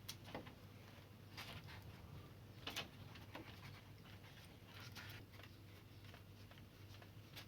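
Faint scattered clicks and light taps from handling wires at the air conditioner's terminal connections, over a low steady hum.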